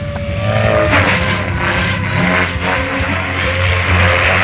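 Radio-controlled model helicopter flying, its main rotor and motor running with a steady low drone and a high hiss.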